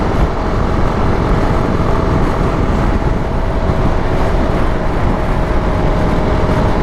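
Motorcycle underway on a multi-lane highway: steady wind and road rush, with a faint steady engine hum underneath.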